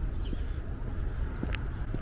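Outdoor street ambience while walking: a steady low rumble with scattered footstep clicks, and a brief bird chirp a fraction of a second in.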